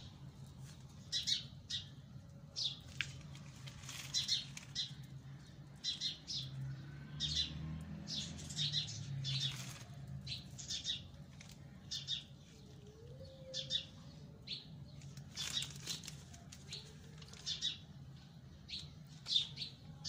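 Small plastic seed packet rustling in short shakes, often in quick pairs, as maize seed is shaken out of it by hand.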